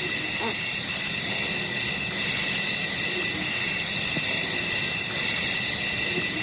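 Steady chorus of night insects: several shrill, unbroken high-pitched trills at different pitches sounding together.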